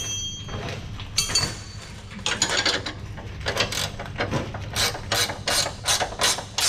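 Hand ratchet wrench clicking as it is swung back and forth to run in a bolt, the clicks settling into a steady run of about three a second from about two seconds in.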